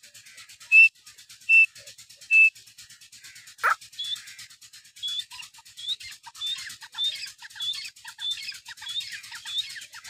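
Birds calling: three loud, clear whistled notes under a second apart, then a single downward-sliding note, then a long run of short, high, upturned chirps about every half second.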